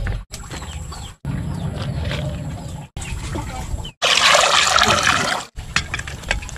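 Short cooking clips cut together. The loudest, about four seconds in, is water poured into a metal cooking pot, a splashing rush lasting about a second and a half, followed by a few sharp clicks.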